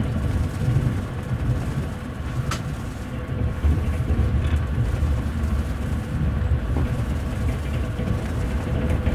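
Steady low rumble of a double-deck passenger carriage under way, heard from inside its upper deck as the wheels roll on the rails, with one sharp click about two and a half seconds in.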